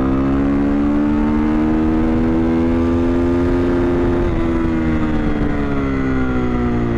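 KTM EXC 450's single-cylinder four-stroke engine, through an Akrapovič exhaust with the dB-killer removed, pulling at full throttle in third gear: the pitch climbs for about four seconds toward the rev limiter, where power is cut hard at the top, then the revs fall away as the throttle comes off. Very loud.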